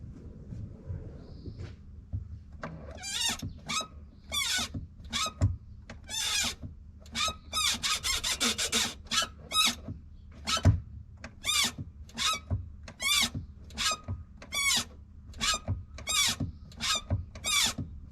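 Clutch of a Toyota 86 / Subaru BRZ squeaking over and over as the clutch is worked, about twenty short high squeaks that come in a quick run midway, with a steady low hum underneath. This is the abnormal clutch noise that the attempted fix has failed to cure.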